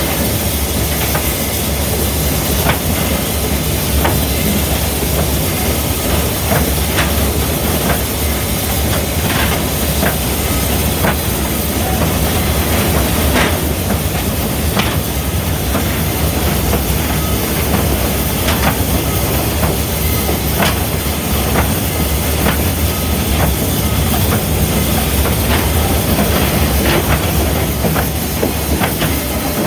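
Southern 4501, a steam locomotive, running, heard inside its cab: a loud, steady rushing din of the moving engine with irregular sharp clicks and clanks throughout.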